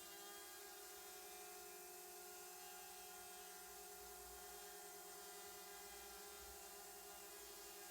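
Faint, steady hum made of several held tones, with a low uneven rumble underneath.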